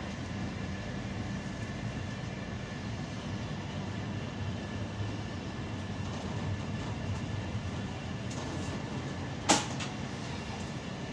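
Passenger train running along the track, a steady rolling rumble heard from inside the rear of the last car. About nine and a half seconds in there is a single sharp knock.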